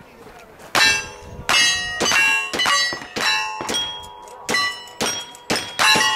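A rapid string of about ten gunshots, each followed by the metallic ring of a struck steel target. The shots start a little under a second in and come roughly two a second.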